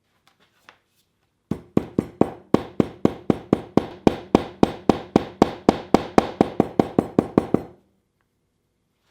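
Hand hammer striking metal on an anvil in a steady rhythm, about four ringing blows a second, starting about a second and a half in and stopping near the end.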